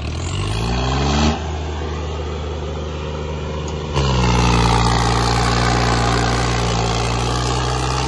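John Deere tractor diesel engines pulling at full throttle under heavy load in a tug-of-war. The revs climb over the first second and dip, then the engine note jumps louder about four seconds in and holds steady.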